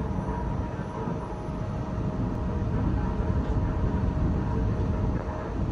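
Steady low mechanical rumble with a faint steady whine, from the slipway winch and rail cradle hauling a ship off the slip.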